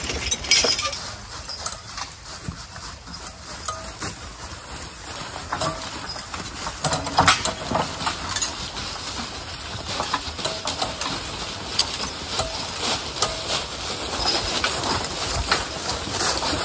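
A team of draft horses walking through deep dry leaves, hooves crunching and shuffling irregularly, with harness chains and a wheeled forecart rattling along behind them.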